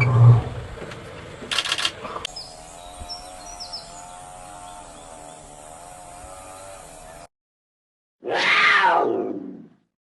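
A run of edited animal sounds. It opens with a short loud call and a brief burst, then a steady stretch with a wavering tone. After a second of silence comes a loud animal call lasting about a second and a half that falls steeply in pitch.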